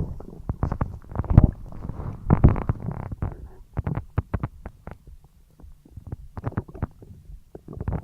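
A human stomach gurgling and rumbling while digesting a large meal: a run of short, irregular gurgles and squelches that dies down for a moment past the middle, then starts again.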